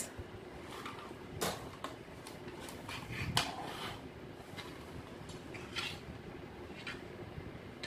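Faint scattered clicks and knocks of a plastic headband toy with goggle eyes being handled and set against a tabletop.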